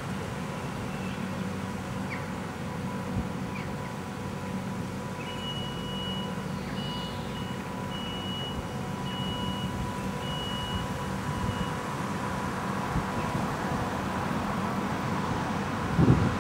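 Electric multiple-unit passenger train humming steadily, with a high, broken beeping for several seconds midway. The train pulls away from the platform.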